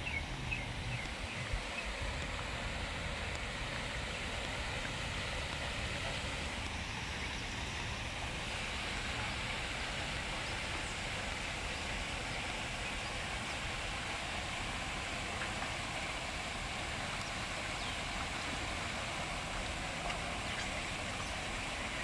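Steady rush of water pouring from two large outfall pipes into a concrete canal, an even hiss with no change in level.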